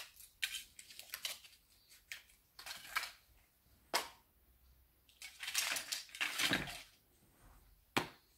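Foil wrapper of a chocolate surprise egg crinkling and tearing in short bursts, with a longer stretch of crinkling past the middle and two sharp clicks, about four and eight seconds in.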